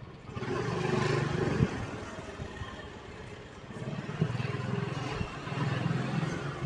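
Motorbike engines running in street traffic, growing louder about half a second in and again from about four seconds in, with a couple of short clacks.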